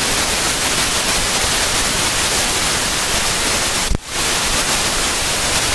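Steady, loud hiss of heavy rain and tyre spray heard from inside a car driving at highway speed. It breaks off with a click near four seconds in, then resumes.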